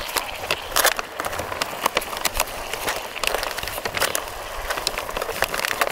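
Plastic food packaging crinkling and rustling under a gloved hand, a stream of irregular crackles.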